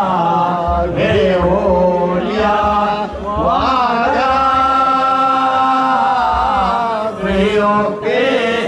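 A voice chanting Hindu wedding verses in a drawn-out, sung line, holding one long note for about three seconds in the middle, over a steady low drone.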